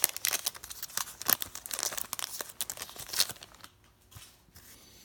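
Wrapper of an Upper Deck hockey trading-card pack being torn open and crinkled: a rapid run of sharp crackles for about three seconds, then only a few faint rustles.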